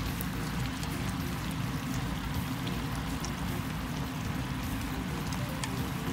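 Pork-wrapped enoki rolls sizzling and bubbling in a frying pan of soy-and-mirin sauce, a steady sizzle dotted with small crackles and pops as the sauce reduces.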